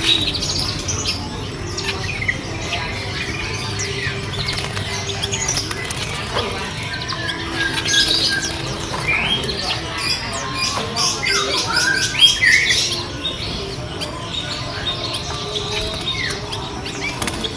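A chorus of caged birds: zebra doves (perkutut) calling amid many small birds chirping and twittering. A run of rapid high chirps comes about two-thirds of the way through.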